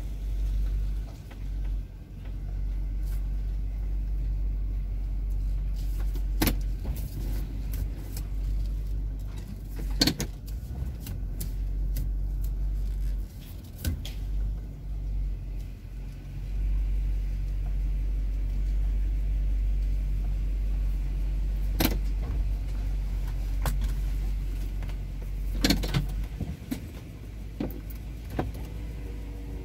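Low, steady rumble of a car's engine and tyres heard inside the cabin while driving slowly, with a few sharp knocks scattered through it.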